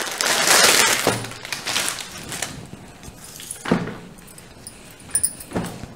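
Clear plastic packaging bag crinkling and rustling as a folded suit is pulled out of it, loudest for the first two seconds or so, then a few softer rustles and light handling sounds.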